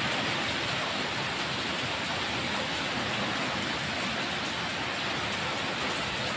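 Heavy typhoon rain and wind through the trees, an even, steady rush of noise.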